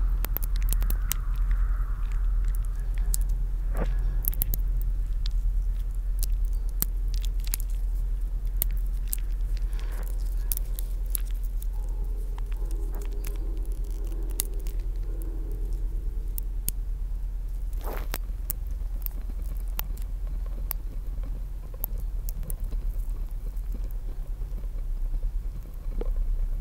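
Experimental sound piece: a deep, steady hum under scattered crackling clicks, with a faint wavering tone in the middle and one louder click about two-thirds of the way through.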